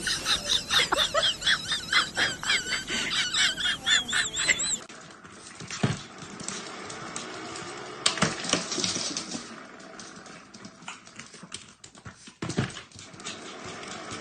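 A dog giving rapid high-pitched yips or whines, about three or four a second, for roughly the first five seconds. After that come only a few scattered knocks over a quieter background.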